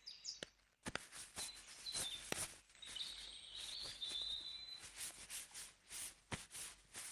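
Faint outdoor ambience of small birds chirping, with a high twittering call in the middle, and scattered light taps and clicks.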